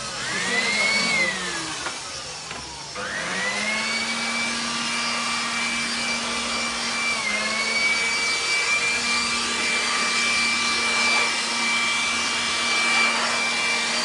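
Handheld electric air blower running: its motor whine rises, sinks away over about two seconds, then climbs again about three seconds in and holds steady at a high pitch. It is blowing dust out of an opened gas heater.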